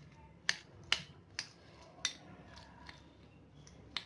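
Hand mixing a sabudana vada mixture in a glass bowl, with a few sharp, irregularly spaced clicks as the fingers knock against the glass.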